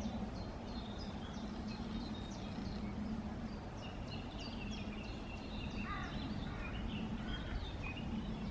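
Small woodland birds chirping and twittering, many short high notes, over steady low background noise.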